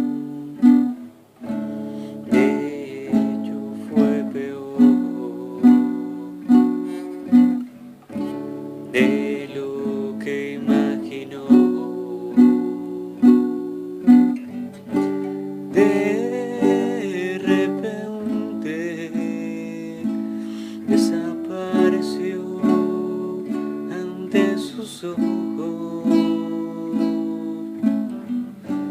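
Instrumental music built on plucked guitar chords, struck about once a second and left to ring out.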